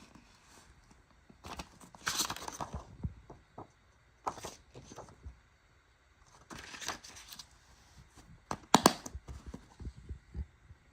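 Plastic DVD cases being handled: bursts of rustling and a few sharp clicks, the loudest cluster of clicks about nine seconds in.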